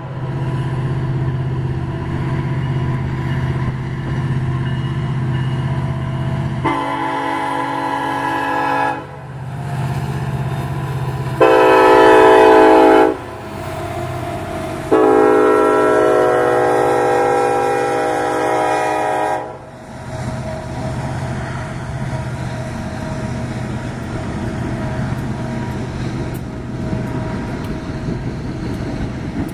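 Diesel freight locomotives of an eight-unit lashup, led by an EMD SD70ACe, drone steadily on approach while the lead unit's air horn sounds three blasts: a long one about seven seconds in, a short one at about eleven seconds (the loudest), and another long one at about fifteen seconds. From about twenty seconds on, the locomotives' engines and wheels rumble past close by.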